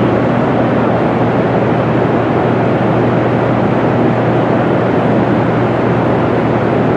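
Hoover Dam hydroelectric power plant running: a loud, unbroken machine noise with a constant low hum, from turbines and water flowing through the penstocks.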